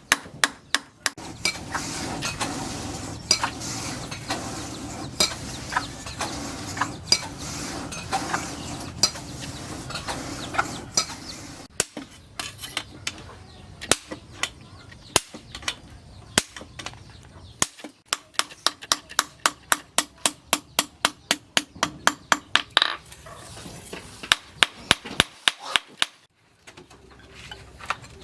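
Hammer blows striking steel on an anvil while forging a knife blade from a tractor disc, in runs of quick, sharp strikes. A steady noise sits under the blows for the first several seconds.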